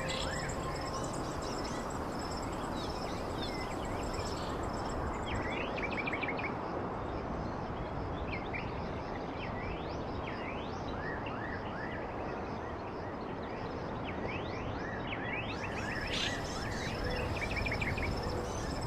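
Steady outdoor ambience: an even rushing hiss, with many small birds chirping in short quick notes and a thin, steady, high insect buzz in the first few seconds.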